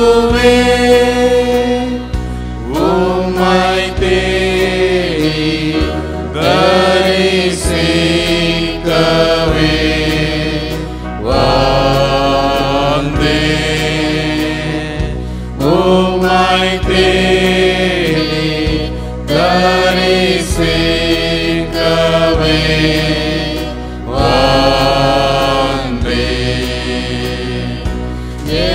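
A Tamil Christian hymn sung by a small worship team, with voices over an electronic keyboard (Yamaha) holding steady bass and chords.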